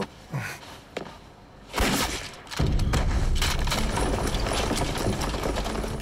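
Gunfight: a few separate shots and thuds in the first two seconds, then from about two and a half seconds in a dense, continuous barrage of gunfire.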